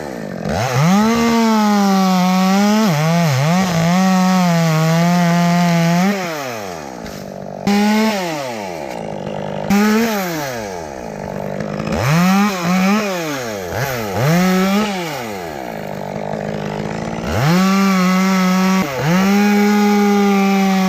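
Chainsaw cutting into a limb of a dead elm, held at full throttle for several seconds at a time. Between cuts it drops back to idle, with a few short revs.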